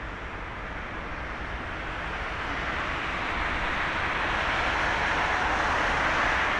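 Airbus A330-300 jet airliner rolling out on the runway after landing, its engines giving a steady roar that grows louder as the aircraft comes nearer.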